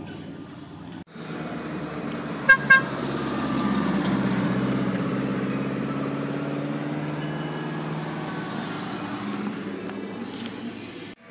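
A car horn gives two short, loud toots, then a car engine revs up and keeps running as the car pulls away, fading slowly.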